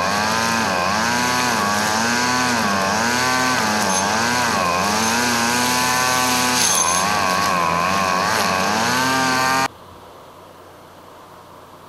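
Tractor with a hydraulic reach-arm verge mower cutting roadside grass: a loud machine drone whose pitch dips and recovers about once a second. It cuts off suddenly about ten seconds in, leaving a faint hiss.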